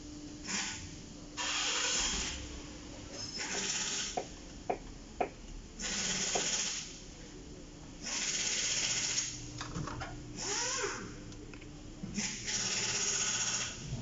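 Hand tools working on a van's front-end fasteners: about seven short bursts of harsh mechanical noise, each lasting about a second, with a few sharp clicks between them as parts are worked loose.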